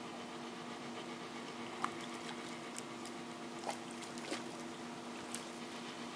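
Water trickling and splashing in small spurts, with a few short sharp splashes or knocks, over a steady low hum.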